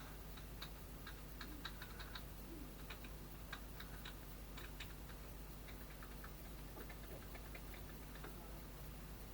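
Faint, irregular light clicks of computer keys being pressed, over a low steady hum.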